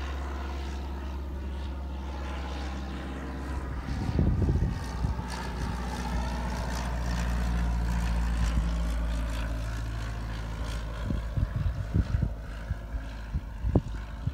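Single-engine high-wing propeller plane passing low overhead on its landing approach, its piston engine droning steadily, loudest about halfway through and fading as it moves away. Wind gusts buffet the microphone about four seconds in and again near the end.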